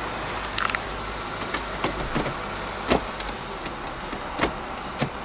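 Automatic gear selector lever of a 2008 Mazda CX-7 being moved through its gated shifter, giving several sharp, irregularly spaced clicks and knocks over a steady cabin background noise.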